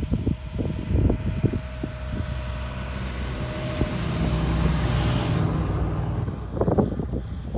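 Half-ton pickup on Mattracks rubber track conversions driving past close, its engine and tracks loudest about four to five seconds in, with a hiss of thrown snow as it goes by. Wind buffets the microphone at the start and again near the end.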